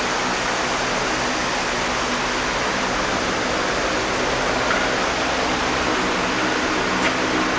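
LK120 screw oil press running steadily: an even mechanical noise with a constant hum underneath. A single short click near the end.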